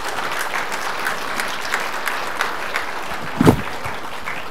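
Conference audience applauding at the end of a keynote talk: dense, steady clapping, with a single loud thump about three and a half seconds in.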